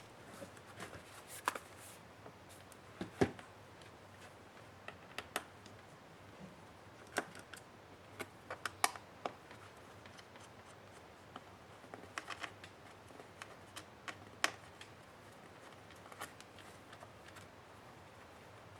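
Light, irregular clicks and taps of a laptop being handled for disassembly, with a sharper knock about 3 seconds in and another near 14 seconds.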